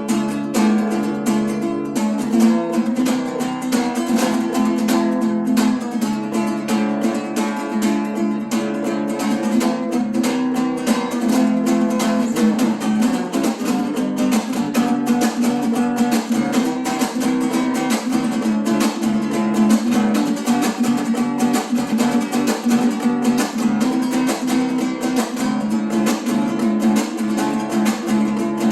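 Acoustic guitar strummed rapidly and continuously in a Latin, flamenco-like style, an instrumental piece.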